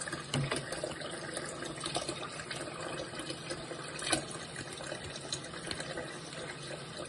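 Tap water running steadily into a kitchen sink, with a few light clicks and one sharper knock about four seconds in.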